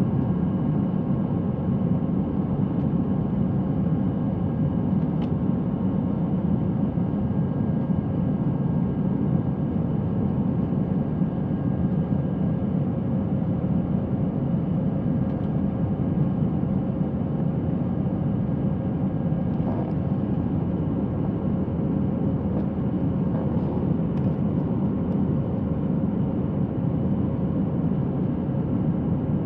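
Airbus A321 cabin noise in the climb after takeoff: a steady low rumble of jet engines and airflow heard from a window seat over the wing, with a steady hum running through it.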